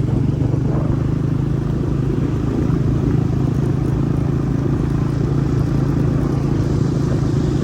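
A motor engine running loudly at a steady speed, with a constant low hum and rumble, starting and stopping abruptly.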